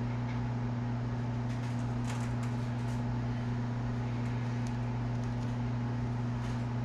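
Steady low mechanical hum, like a small motor or fan running, with a few faint light clicks about two to three seconds in.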